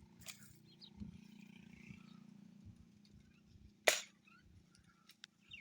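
Air gun firing once: a single sharp crack about four seconds in.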